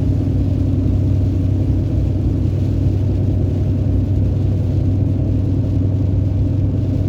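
Two-wheel-drive truck driving on a snow-covered road, heard from inside the cab: a steady low rumble of engine and tyre noise that holds even throughout.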